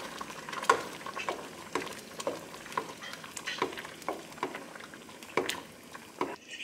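Spoon stirring a pot of thick rice porridge (congee) with added meat, the spoon knocking and scraping against the pot about twice a second. A steady hiss of the simmering porridge runs underneath.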